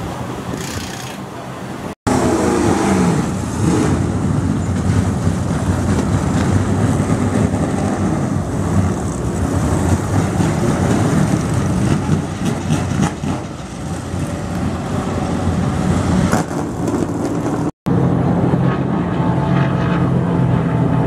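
NASCAR Truck Series race trucks' V8 engines running loudly, quieter for the first two seconds, with two brief cuts in the sound: about two seconds in and near the end. After the second cut, a steadier low engine drone.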